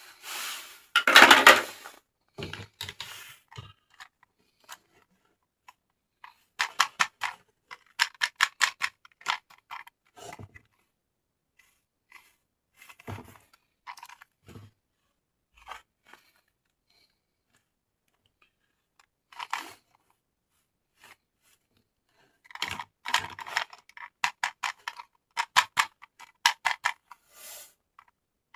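Toy packaging being handled and opened by hand: crinkling and tearing in short bursts, loudest about a second in, with quick runs of rustling clicks in between and stretches of quiet.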